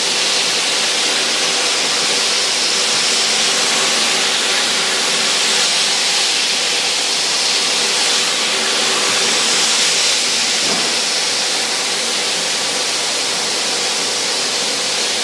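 Orbital floor sander running with a shop vacuum hooked to it for dust extraction: a steady hiss with a faint hum underneath.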